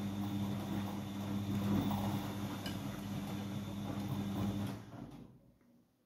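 Siemens iQ100 front-loading washing machine in its main wash, its drum turning the laundry over a steady motor hum. Near the end the drum winds down and stops, leaving near silence.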